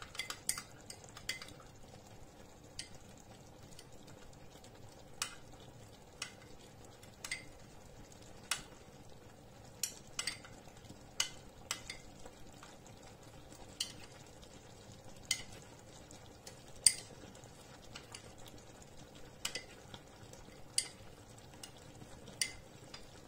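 Chicken and vegetables simmering in sauce in a frying pan: a faint steady sizzle with sharp pops at irregular intervals, roughly one a second.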